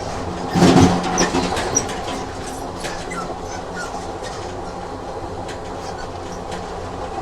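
Train running on rails, with a steady rumble and scattered faint clicks of the wheels over the track. A louder clatter comes just under a second in.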